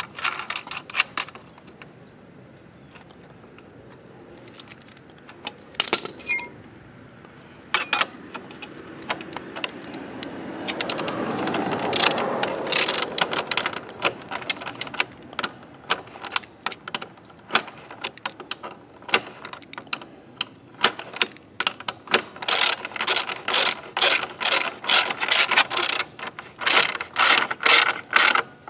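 Hand ratchet wrench clicking as a bolt is run in and tightened, in quick runs of clicks that grow dense over the last third. A rushing sound swells and fades about ten to thirteen seconds in.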